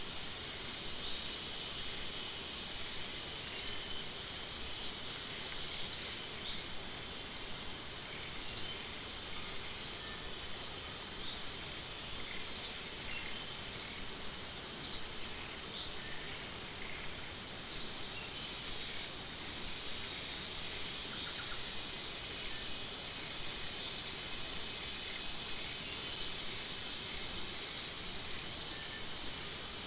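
A bird's short, high, rising chirp, repeated every two seconds or so, over a steady high-pitched insect drone.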